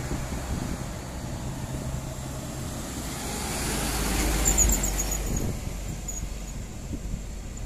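A heavily loaded cargo truck's diesel engine drones low as the truck passes close by. It grows loudest about four to five seconds in, with a brief high squeal as it goes past, then fades away.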